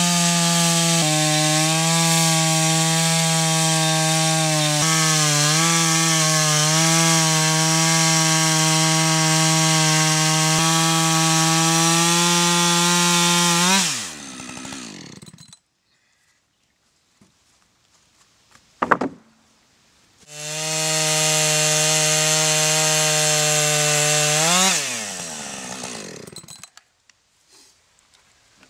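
Chainsaw in a chainsaw mill running at full throttle, ripping a white pine log into 1-inch boards: a steady engine note under the hiss of the chain cutting. About halfway through, the throttle is let off and the sound dies away. After a pause with one sharp knock, it cuts again for about five seconds and runs down once more.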